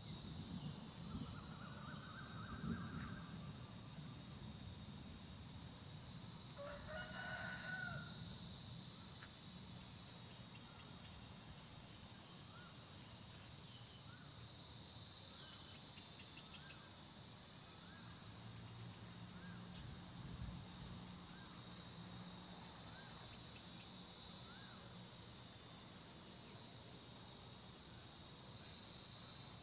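Cicadas in the trees calling in a continuous, loud, high-pitched drone. A rooster crows once about seven seconds in, and faint short chirps repeat about once a second in the second half.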